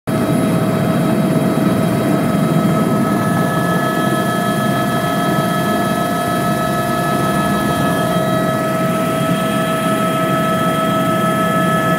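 Helicopter running, heard from inside its cabin: a steady high whine over a dense, even rumble from the rotor and engine, with no change in pitch or loudness.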